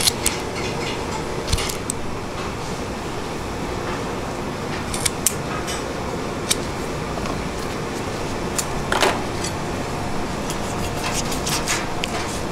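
Fish-cutting work at a seafood stall: a steady hum with scattered sharp clicks and knocks of a knife and tools, and a short scrape about nine seconds in.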